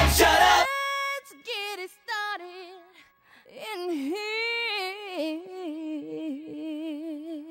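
Loud rock music stops abruptly under a second in; then a lone female voice sings unaccompanied, in gliding phrases with short gaps, ending on a long wavering held note.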